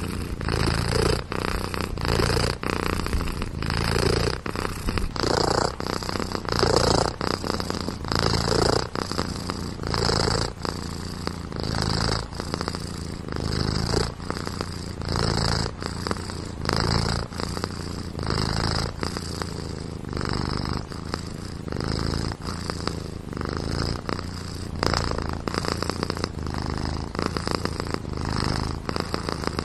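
Domestic cat purring continuously, swelling and fading in a slow rhythm about once a second.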